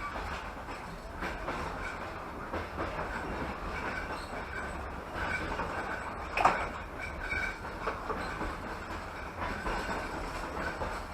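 Passenger train running at speed, heard from inside the carriage: a steady rumble of wheels on rails with irregular clicks over rail joints and a thin high wheel squeal at times. One sharp knock comes about six and a half seconds in.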